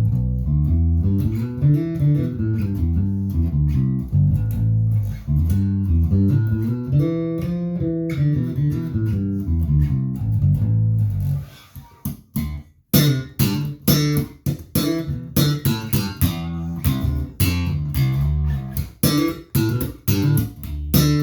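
Harley Benton JJ-55 OP electric bass, strung with nickel DR Pure Blues strings, played solo with both pickups blended evenly and the treble and bass controls flat: a passage of sustained low notes, then from about halfway a run of short, sharp notes with a bright attack. The tone at this setting is a little bit trebly.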